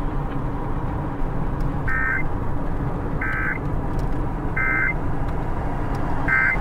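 Steady road and engine noise inside a moving car, with four short electronic beeps about a second and a half apart.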